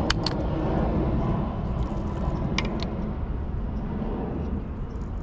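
Airplane passing overhead: a steady low drone that slowly fades. A few sharp clicks come near the start and about two and a half seconds in.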